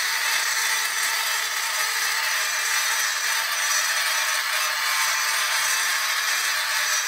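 Handheld rotary tool grinding out an intake runner port in a cast-aluminium GT40 lower intake, a steady hissing grind with no let-up.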